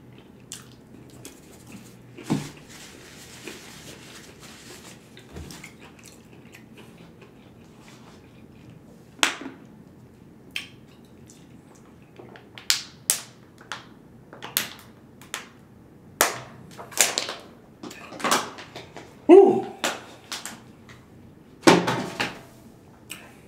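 Close-miked eating and drinking mouth sounds: quiet chewing, then scattered short clicks and gulps while drinking water from a plastic bottle, coming about once a second in the second half.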